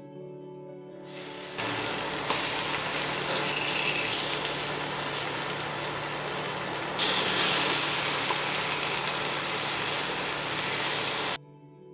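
Fish shallow-frying in hot oil in a pan: a steady sizzle that starts about a second and a half in, grows louder partway through and cuts off sharply near the end.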